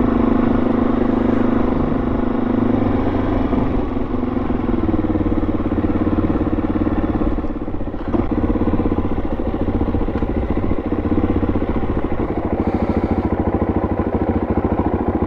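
Dual-sport motorcycle engine running at low speed on a dirt track, then idling near the end as the bike pulls up and stops.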